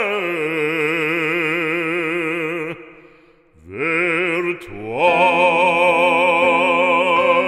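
Operatic solo singing: a long note held with wide vibrato, a short break about three seconds in, then the voice slides up into another long held note with vibrato.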